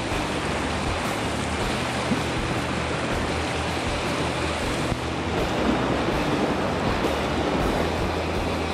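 Fast river water rushing over a shallow rocky riffle: a steady, even rush.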